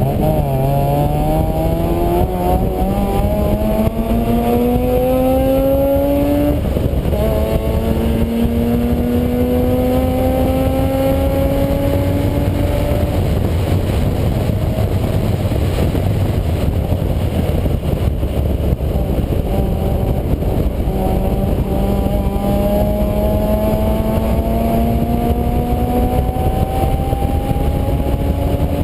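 Motor vehicle engine pulling up through the gears. Its note rises steadily, drops at a shift about six seconds in, rises again until about thirteen seconds, and climbs once more later on. A heavy, constant low rumble of wind and road noise lies underneath.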